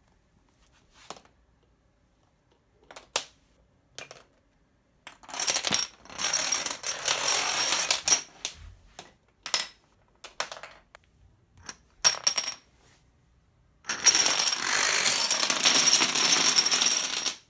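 Plastic dominoes toppling in a chain reaction: a few scattered clicks at first, then runs of rapid clattering, with the longest and loudest clatter over the last few seconds.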